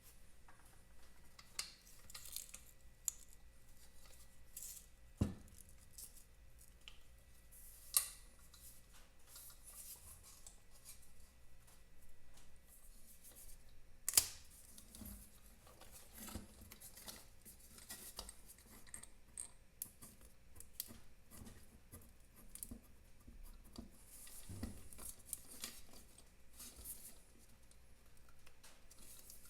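Faint bench-work handling noises: small clicks, scrapes and scattered taps of hand tools and small metal parts, with a few sharper knocks, the loudest about fourteen seconds in.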